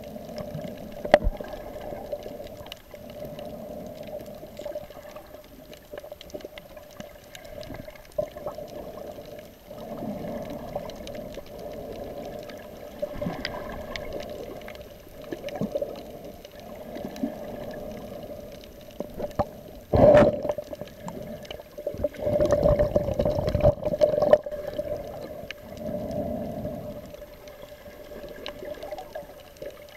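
Muffled underwater sound through a waterproof camera housing: water moving and gurgling, with a steady hum, scattered clicks, and louder surges about two-thirds of the way through.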